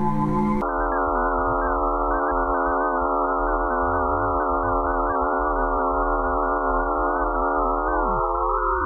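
Eerie electronic drone of many wavering steady tones sounding together, which the uploader presents as Pluto's magnetic-field and radio-wave sounds. It cuts in abruptly just after the start, and near the end some tones glide downward while others rise.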